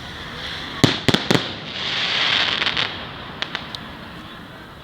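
Fireworks going off: three sharp bangs in quick succession about a second in, then a hissing crackle that swells and fades, with a few small pops near the end.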